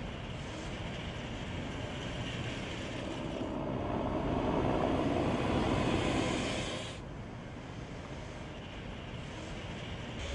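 Zero XU electric motorcycle on the move: a steady rushing noise of motor, tyres and wind that builds to its loudest about five seconds in, then drops off abruptly about seven seconds in.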